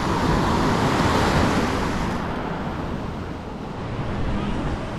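Steady wash of breaking surf with wind rumbling on the microphone; the hiss thins out suddenly about two seconds in.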